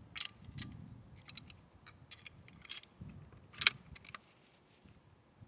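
Bolt of a Remington 700 in 300 PRC being worked by hand: a string of short metallic clicks and clacks as the action is opened, a round is single-fed and the bolt is closed, with one sharper clack about two-thirds of the way through.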